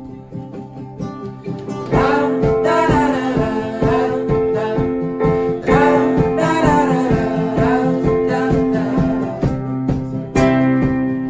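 Instrumental break of a folk song: acoustic guitar strumming over held notes, with a fuller sound and a higher, wavering melody line coming in about two seconds in.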